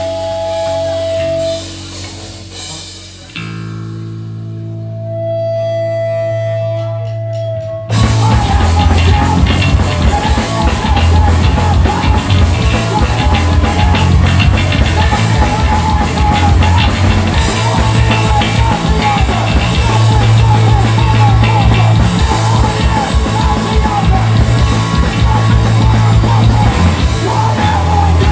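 Hardcore punk band playing live: for about eight seconds distorted guitar and bass chords ring out with a steady high feedback tone, then the drums and the full band come in loud and fast.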